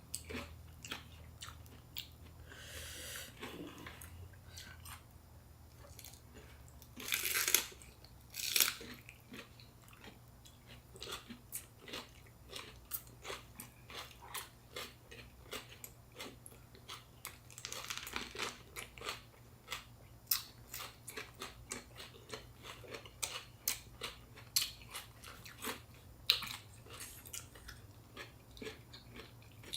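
Close-up chewing and biting of fresh rice-paper spring rolls filled with shrimp and raw vegetables: wet, crunchy mouth sounds with many small smacking clicks, and louder crunching bites about 7 and 8.5 seconds in and again around 18 seconds, over a faint steady low hum.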